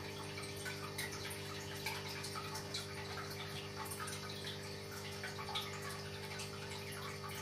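Running water trickling and dripping, with small irregular ticks, over a steady low electrical hum.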